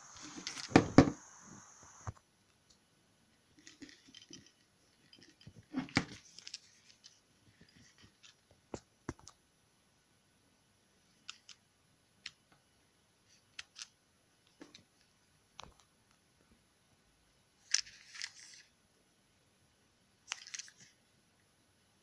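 Handling noise from a plastic big-button feature phone being turned over and moved on a wooden table: scattered small clicks and taps with brief rustles, the loudest burst of handling about a second in.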